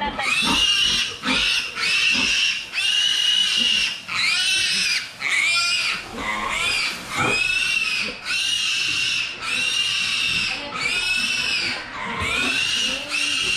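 A pig squealing over and over: about a dozen shrill squeals, each rising and then falling in pitch, roughly one a second.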